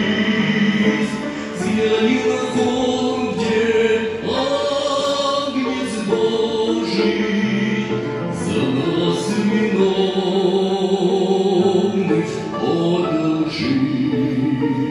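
A choir singing a Christian hymn, with the voices moving through held notes.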